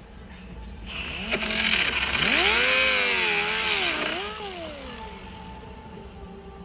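A handheld power tool cutting into plastic door trim. It starts about a second in, and its pitch sags and recovers as it bites, for about three and a half seconds before winding down.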